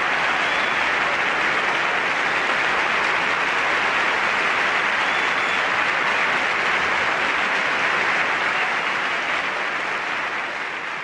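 Audience applauding steadily, the applause fading down over the last few seconds.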